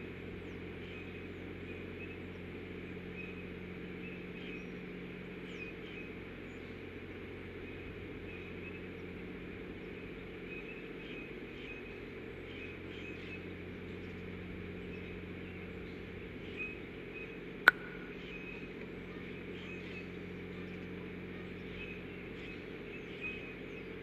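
Steady low hum with faint, short chirps repeating high in the background, broken once by a single sharp click a little past the middle.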